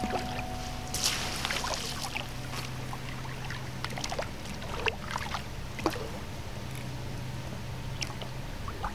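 Hooked carp splashing at the surface close to the bank as it is played toward a landing net: a handful of separate water splashes and slaps over a steady low hum.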